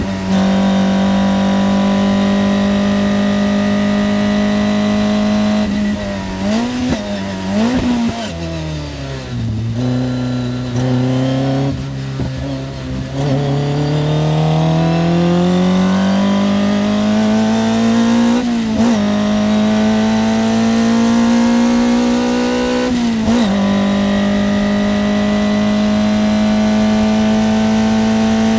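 Toyota 4A-GE five-valve inline-four of a VIVACE 908 race car, heard onboard running at high revs. About six seconds in the revs jump up and down as it brakes and changes down, then sit low before climbing steadily. Two quick upshifts follow, and it settles back to steady high revs.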